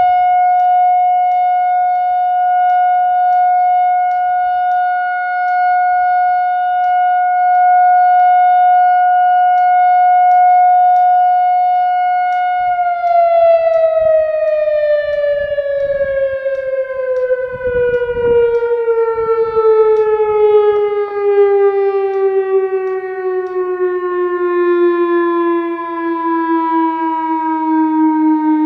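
Whelen WPS-2760 electronic outdoor warning siren sounding a loud steady tone, then about halfway through it slowly winds down, its pitch falling smoothly to a much lower note.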